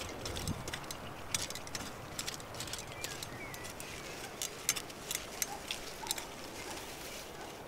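Small hand hoe scraping and chopping through loose soil between garlic plants: irregular scratchy ticks and scrapes. A bird chirps faintly now and then.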